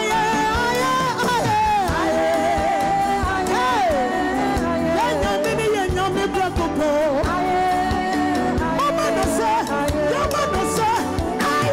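Live gospel band: a woman's solo voice sings a gliding melody over keyboards, bass guitar and a steady drum beat.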